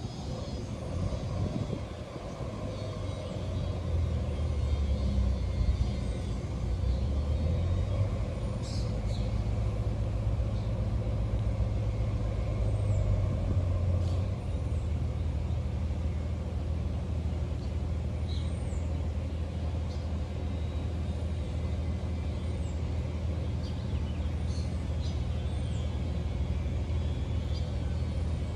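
Steady low rumble like a running engine, a little louder in the first half, with short high bird chirps repeating over it.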